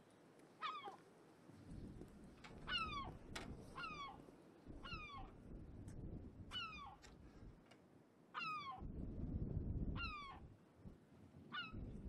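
A gull calling again and again, about nine short cries that each fall in pitch, some in quick pairs. A low rumble of wind on the microphone swells about three-quarters of the way through and again near the end.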